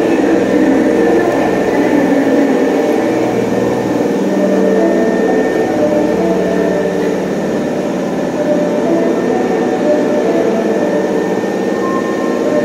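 Osaka Metro Sakaisuji Line subway train standing at the platform, its equipment giving a steady hum of several low, even tones with a faint high whine over it.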